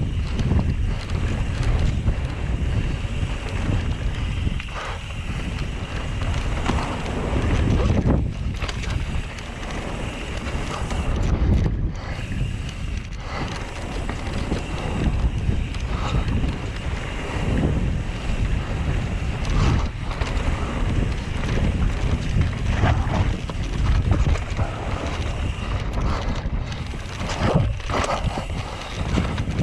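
Wind buffeting the microphone of a mountain bike riding fast down a flow trail, over a steady rumble of tyres on the trail. Scattered knocks from bumps come through all along.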